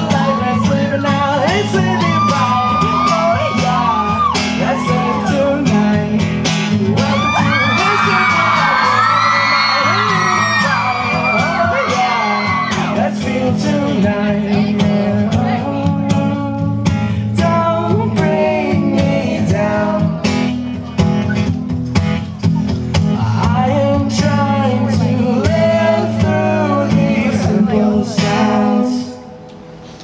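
Acoustic guitar strummed steadily under voices singing a song live. The playing stops about a second before the end.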